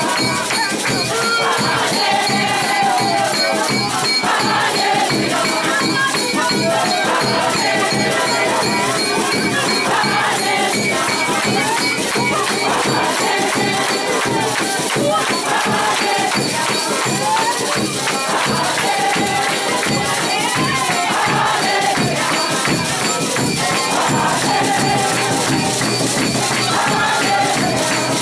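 A large congregation singing and chanting together, with hand percussion such as shakers or tambourines rattling to the beat.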